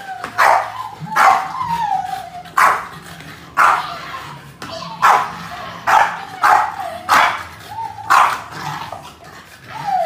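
A small dog barking over and over, about one bark a second, each a sharp yappy bark that falls in pitch.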